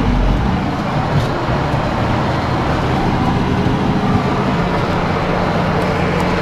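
Ares 640 snowplough working through deep snow: a steady heavy engine drone under a broad rush of snow, the engine note settling to a steadier pitch about four and a half seconds in.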